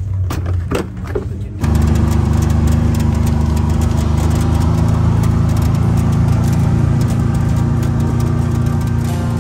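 A few clicks and knocks at the door of a Can-Am Maverick side-by-side. About a second and a half in, its Rotax engine comes in abruptly and runs loud and steady as the machine is driven.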